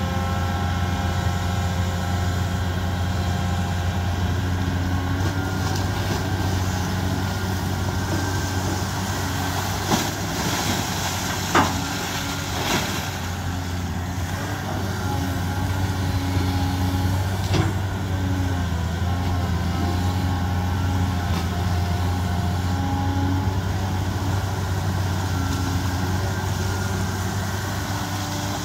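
Caterpillar hydraulic excavator's diesel engine running steadily while the machine digs, with hydraulic whining tones that come and go and shift in pitch as the boom and bucket move. A few sharp knocks around the middle.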